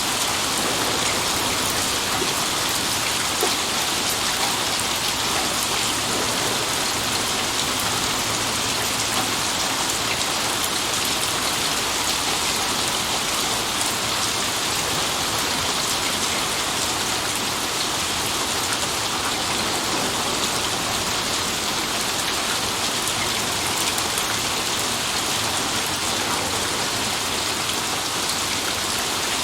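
Rain falling steadily, an even hiss of many drops hitting surfaces, with no change in strength.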